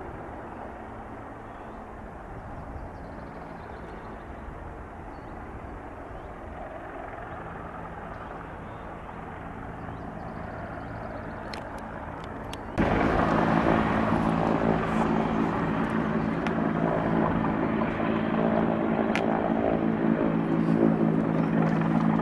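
Bell 412 twin-turbine helicopter hovering, at first a faint distant hum. About thirteen seconds in, the sound jumps abruptly to much louder and closer: a steady rotor and turbine hum with several even tones.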